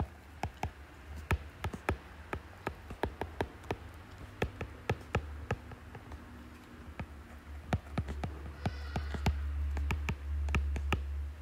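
Stylus tip clicking and tapping on a tablet's glass screen during handwriting, in quick irregular clicks, over a low hum that gets louder near the end.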